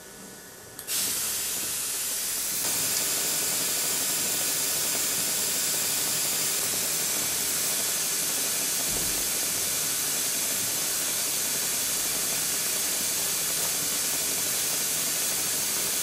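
Dental suction hissing steadily as it draws off the sodium hypochlorite irrigant from the tooth. It comes in about a second in and grows a little louder a couple of seconds later.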